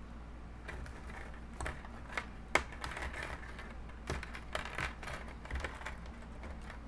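Scattered light clicks and rustles from hands twisting and handling the hair of a lace front wig, in an irregular run with the sharpest click about two and a half seconds in.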